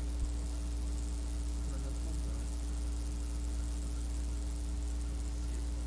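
Steady electrical hum and tape hiss from an old cassette recording, with a constant tone above the hum and faint, indistinct voices in the background. A single small click comes just after the start.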